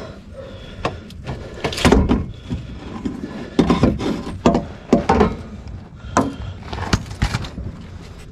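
A string of uneven knocks and clunks as an old ACDelco starter motor is worked loose and pulled out from under a Duramax diesel truck.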